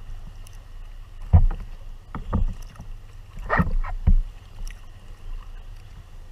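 Sea kayak paddling on calm water: about five irregular splashes and thumps of paddle strokes and water against the hull of a Tempest 170 sea kayak, the loudest about a second and a half in, over a steady low rumble.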